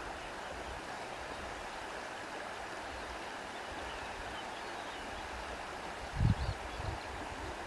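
Steady rushing water, like a stream, with faint high chirps above it and a brief low thump about six seconds in.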